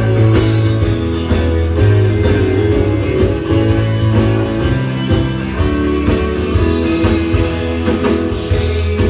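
Live band playing guitar-led rock music, with a steady bass line.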